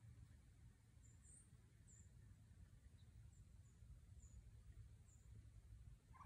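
Near silence, with several faint, very high, short chirps from a small bird scattered through it over a low steady rumble.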